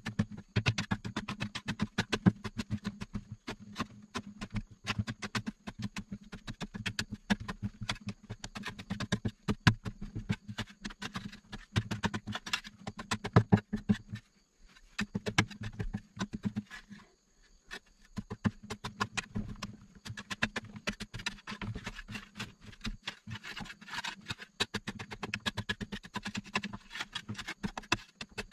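A long-handled digging tool scraping and chipping rapidly and irregularly at a packed earth wall, with loose dirt crumbling and falling. The strokes pause briefly twice near the middle.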